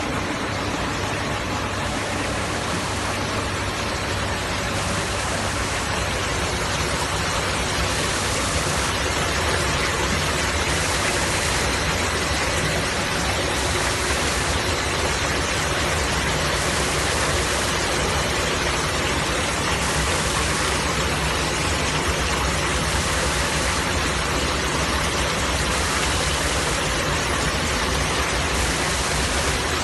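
Wastewater sludge dewatering machine running: a steady, unbroken rush of water splashing through it, with a low steady hum underneath.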